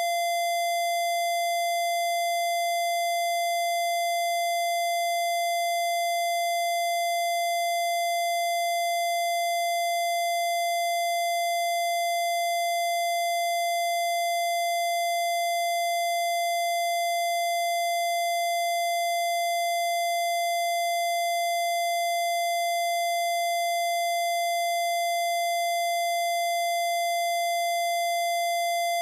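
A single steady electronic tone, a Rife-style healing frequency, starts abruptly out of silence and holds one unchanging pitch, with fainter overtones above it.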